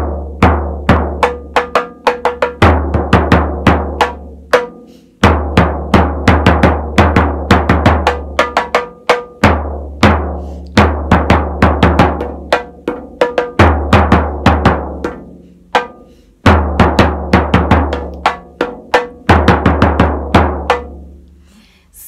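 A large low-pitched frame drum and a small high-pitched drum struck with a soft mallet in a fast, steady beat, switching between the two at irregular moments. The low drum's stretches carry a deep boom under the strokes, and the beat breaks off briefly a few times.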